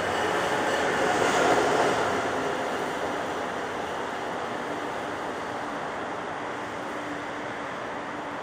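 An Amtrak Acela Express high-speed trainset rolling past on the platform track. The noise is loudest about a second and a half in as the power car goes by, then settles to a steady rolling rush as the coaches pass.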